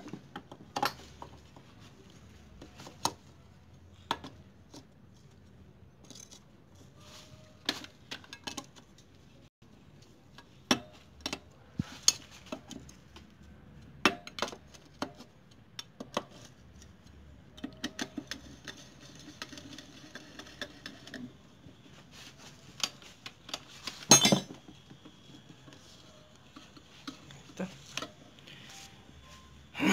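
Small metal engine parts clicking and clinking against a motorcycle crankcase as gearbox internals are fitted by hand, in scattered single clicks with a busier run of them a little past the middle and one louder knock about two-thirds of the way through.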